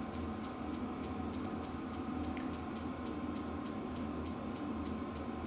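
Quick, even ticking over a steady low hum: a VEVOR 8 kW diesel air heater running, its fuel dosing pump clicking at a regular rate.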